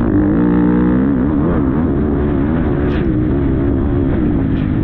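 Motocross bike engine running under race throttle, its pitch rising and falling repeatedly as the rider rolls on and off the throttle.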